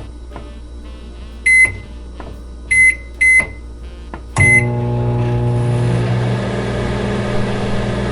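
Microwave oven: four short high keypad beeps over a low hum, then a louder steady hum as the oven starts running.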